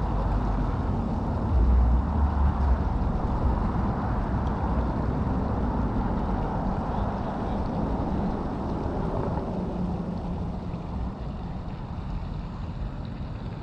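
Wind buffeting the microphone: a steady rushing noise with a gusting low rumble.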